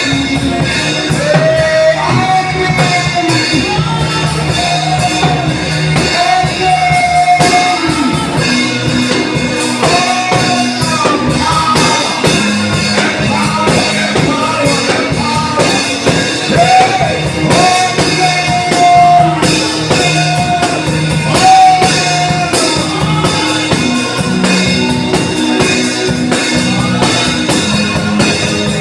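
Gospel music: a voice singing held, wavering melody lines over a band with a drum kit keeping a steady beat, guitar and bass.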